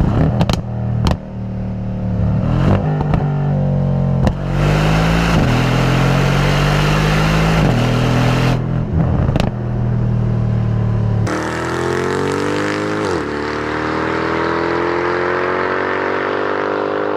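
Mercedes-AMG C63 engine and exhaust revving and accelerating, with several sharp cracks in the first few seconds. About two thirds of the way through, a different take begins in which the engine pitch climbs steadily through the gears, dipping once at a shift.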